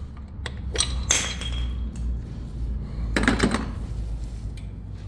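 Metal engine parts and tools knocking and clinking during engine teardown: a few separate knocks, one ringing metallic clink about a second in, and a short rattle of parts around three seconds in.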